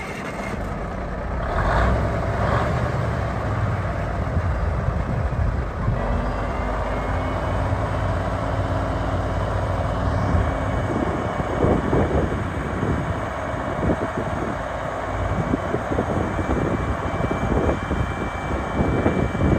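1998 Peterbilt 379 dump truck's diesel engine running steadily while the hydraulic hoist raises the dump body in the second half.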